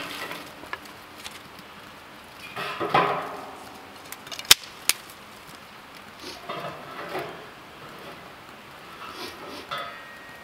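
A stick scraping and knocking inside a stainless steel fire pit as smouldering embers are stirred, with two sharp metallic clinks about halfway through.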